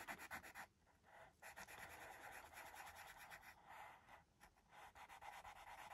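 Faint scratching of a coloured pen colouring in on paper, in quick back-and-forth strokes broken by a few brief pauses.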